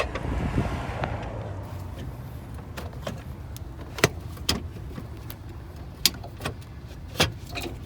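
Scattered sharp clicks and knocks, about seven in all, from plastic car parts and tools being handled, over a low steady hum.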